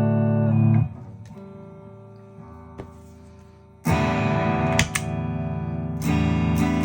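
Electric guitar played through a freshly built Stewmac Ghost Drive overdrive pedal as a test; the pedal is working. A ringing chord is cut off less than a second in, then after a quieter pause two more chords are strummed about two seconds apart and left ringing.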